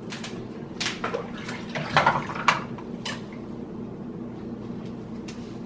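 A handful of light knocks and clicks of things being handled on a kitchen table, the loudest two about two seconds in, over a steady low hum.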